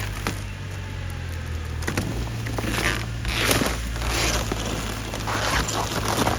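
An engine idling steadily, with irregular bursts of rustling and crackling over it in the second half.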